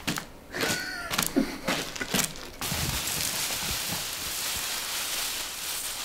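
Mountain bike foley: a few sharp clicks and knocks and a short squeak about a second in, then from about two and a half seconds in a steady hiss.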